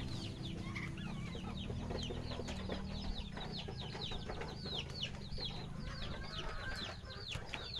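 Young poultry chicks peeping steadily: short, high, falling peeps at about four a second, several birds overlapping, over a low steady hum that fades near the end.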